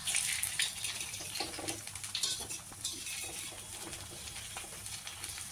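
Small samosas deep-frying in hot oil in a brass kadhai: a steady sizzle full of small crackles, with a wire-mesh skimmer scraping and clinking against the pan as they are turned over.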